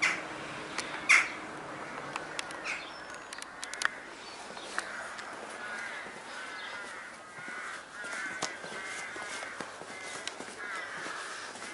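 Birds calling: a few loud, short calls in the first three seconds, then a busy run of quicker, softer chirping.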